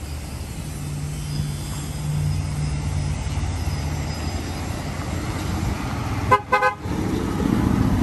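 Chevrolet Corvette C8's 6.2-litre V8 running at low speed as the car rolls past, with a car horn tooting three quick times a little over six seconds in, and the engine getting louder near the end.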